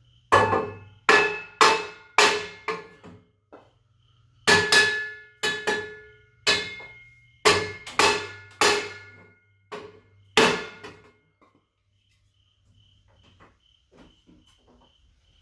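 Sheet metal struck repeatedly: about a dozen sharp, ringing metal clangs in uneven groups over the first ten seconds or so, each dying away. After them, faint regular insect chirping.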